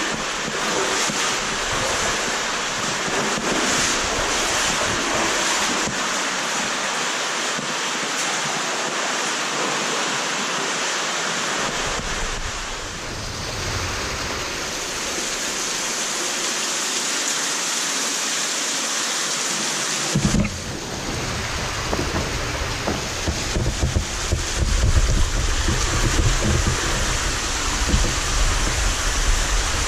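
Underground stream flowing through a cave passage: a steady rushing of water that becomes heavier, with a low rumble, about two-thirds of the way in, where it runs among boulders.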